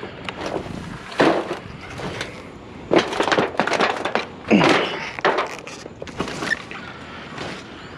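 Thin scrap tin sheet metal being wrestled and bent, giving irregular crunching and clanking impacts, the loudest around three and four and a half seconds in.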